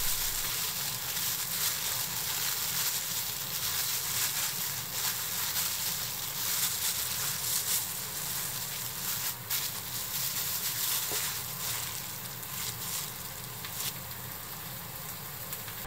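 Clear plastic bag crinkling and rustling as hands knead sliced red onion and bell pepper in pickling liquid inside it, with occasional sharper crackles of the plastic.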